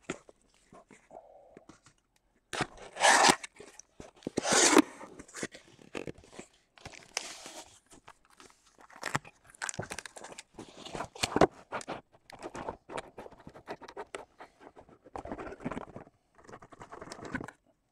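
A cardboard shipping case being torn open and unpacked: flaps and tape tearing, cardboard scraping, and shrink-wrapped boxes crinkling as they are slid out and set down. It comes as a string of short, irregular tearing and scraping noises, loudest about three and four and a half seconds in.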